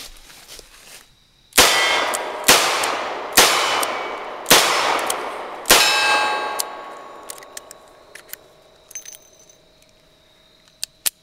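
Five shots from a Smith & Wesson 638 .38 Special snub-nosed revolver, about a second apart, each followed by a metallic ringing that lingers and fades over several seconds. Near the end come a few small sharp clicks as the cylinder is swung open.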